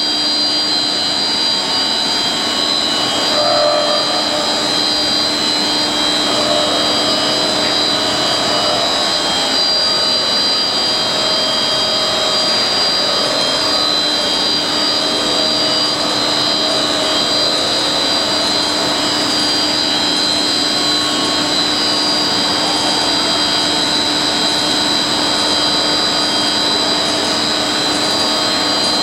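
HDPE blown film extrusion machine running steadily: a constant rushing noise with several steady high-pitched whines over it.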